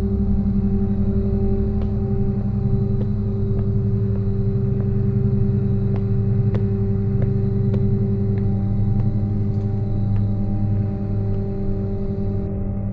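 A low, steady ambient drone, several held tones sounding together with a slight pulsing in the lowest, with faint scattered ticks over it.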